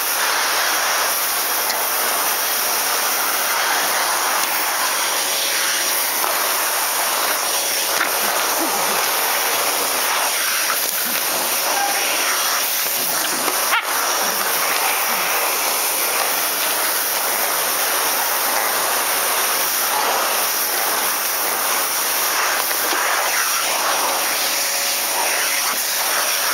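Vacuum cleaner running steadily, a constant loud rushing hiss, with a single brief knock about halfway through.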